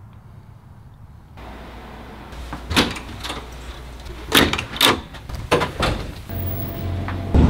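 Door handling: several sharp knocks and latch clicks in the middle stretch, with a large gear bag shifting. A low steady hum comes in near the end.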